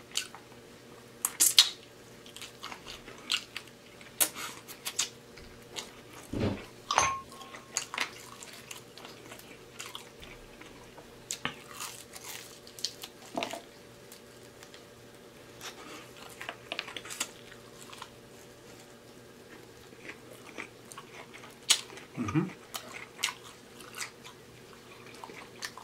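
Close-miked chewing of crispy fried chicken wing, with scattered crunches, bites and wet mouth clicks.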